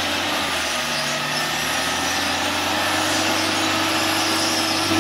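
Lada Niva's engine running with its winch under load as the cable drags the car forward through deep mud and water: a steady low mechanical hum that rises slightly in pitch near the end.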